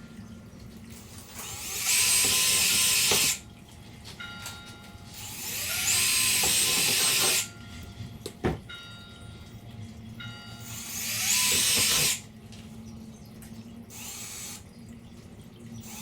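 Power drill boring holes through a plastic cutting board, three runs of a second or two each: the motor winds up, the bit cuts with a high whine, then it stops sharply. A single sharp click partway through.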